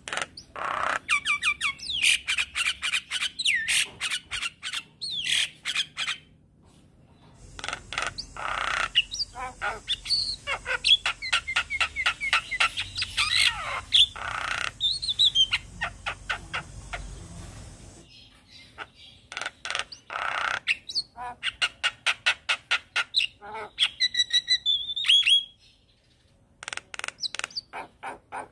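Javan myna singing in three long bouts of rapid, harsh clicking notes mixed with squawks and short whistled glides, with brief pauses between bouts.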